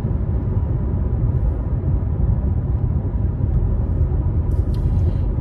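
Steady low rumble of a car's road and engine noise heard inside the cabin.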